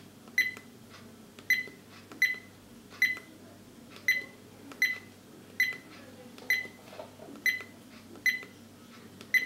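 Dash cam's key-tone beeps: about eleven short, high beeps, roughly one a second, each confirming a button press as its settings menu is stepped through.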